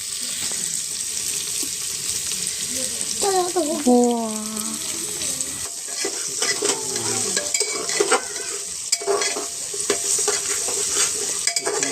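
Goat mutton with spices sizzling as it fries in mustard oil in a pot, while a spoon scrapes and clicks against the pot as it is stirred.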